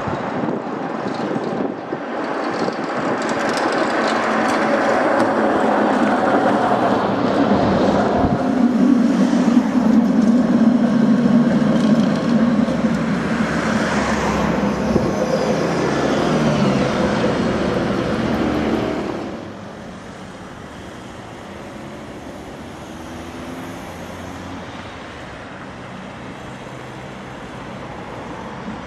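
Street traffic with trams running on street track: loud vehicle and wheel noise builds and passes over the first two-thirds, with a falling tone in the middle. It then drops suddenly to quieter, steady traffic noise as a tram approaches from far off.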